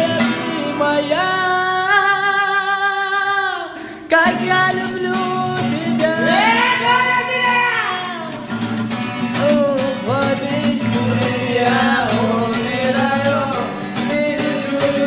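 A song: a voice singing long held notes with vibrato over a plucked-string accompaniment with a steady beat, with a brief break about four seconds in.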